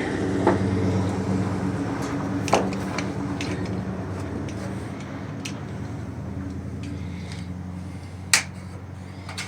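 Gas water heater and its vibrating pipes giving a low, steady hum that slowly fades, broken by a few sharp clicks, the loudest about eight seconds in.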